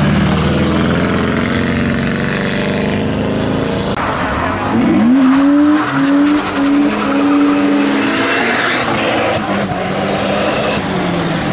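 A modified car's engine running, then revving up sharply about five seconds in and held at high revs for around three seconds, with tyres squealing.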